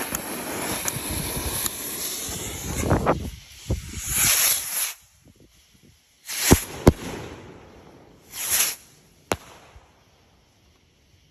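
An aerial firework fired from a rack of mortar tubes: the lit fuse hisses and sparks for about three seconds, then the shell goes up with a loud report. Hissing and sharp bangs follow overhead, two close together about halfway through and a last crack near the end, before it dies away.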